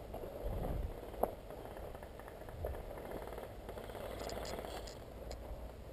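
Footsteps and rustling through grass and undergrowth, with scattered clicks and one sharp click about a second in.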